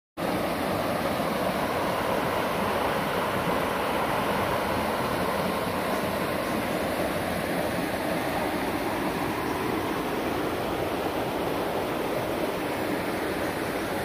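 Shallow freshwater creek running steadily over a rocky, gravelly bed: a continuous babble of flowing water.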